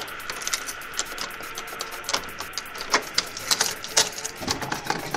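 Keys jangling, with many sharp, irregular metallic clicks, over a faint steady tone.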